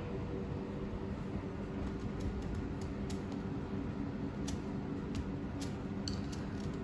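Kitchen knife cutting into the hard rind of a mangosteen, heard as faint scattered clicks and scrapes over a steady room hum.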